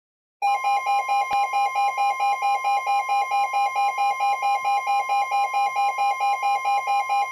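Weather radio alert: the receiver's alarm warbles between two pitches about four times a second over the steady 1050 Hz NOAA Weather Radio warning alarm tone, starting abruptly about half a second in. It signals an incoming warning, here a severe thunderstorm warning. A single click sounds about a second in.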